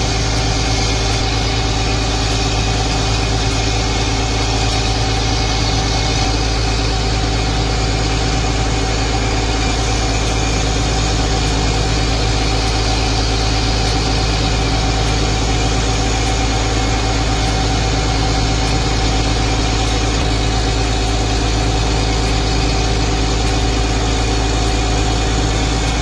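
Concrete boom pump truck's diesel engine running steadily, driving the hydraulics as the boom unfolds.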